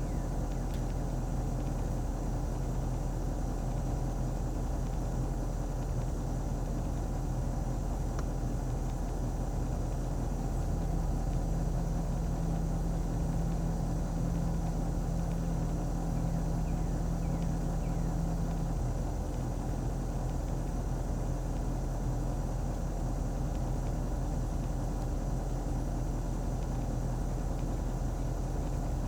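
A motor vehicle running steadily: a continuous low engine hum and rumble, with an extra engine tone standing out for several seconds in the middle.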